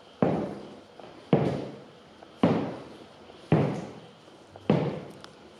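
Footsteps in 14 cm stiletto-heeled leather platform boots on a hard floor: five slow, evenly spaced heel strikes about a second apart, each with a short echo.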